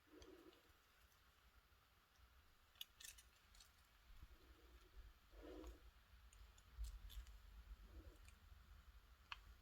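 Faint, scattered small clicks of pliers against metal jump rings as the rings are opened and squeezed shut, over near-silent room tone.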